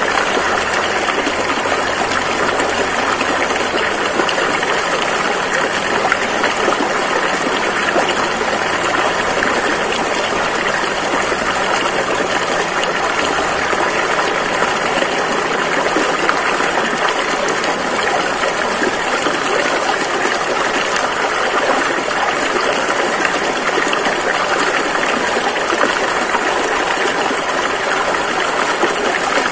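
River water rushing over rocks in a steady, even rush with no breaks.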